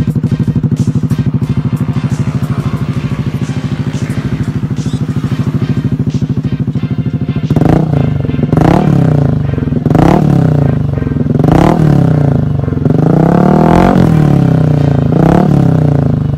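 Yamaha Aerox 155 scooter's single-cylinder four-stroke engine idling steadily through an aftermarket muffler, then revved in about five quick blips from about halfway through, each rising and falling in pitch.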